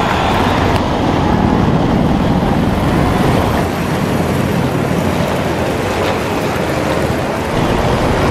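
Steady, loud rotor and turbine-engine noise of Navy MH-60S Seahawk helicopters flying over.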